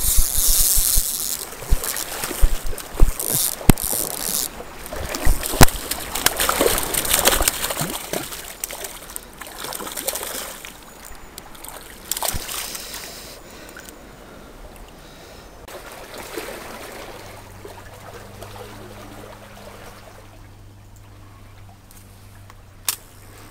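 Clicks, knocks and rustling from handling the camera and fishing rod, loudest and most frequent in the first six seconds, over the faint trickle of a small stream. A faint low steady hum comes in for the last few seconds.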